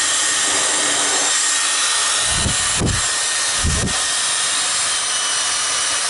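Dyson Supersonic hair dryer running at its highest fan speed: a steady rush of air with a faint high whine. Two brief low gusts come about a second apart in the middle.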